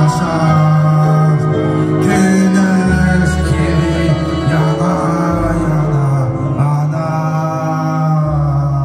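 A song played over a backing track, with held bass notes changing every second or two under keyboard chords, and a young man singing into a microphone over it.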